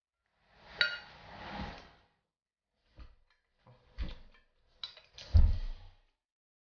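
Tableware clinking during a meal: a spoon knocks a bowl with a brief ring about a second in, then chopsticks tap and scrape a stainless-steel bowl in a few scattered clicks, with a dull knock on the table as the loudest sound near the end.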